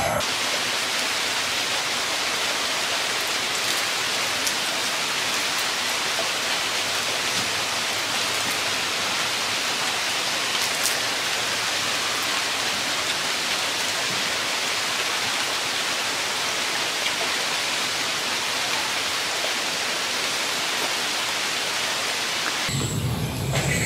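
A steady, even hiss like heavy rain or rushing water, unchanging in level, that cuts off shortly before the end.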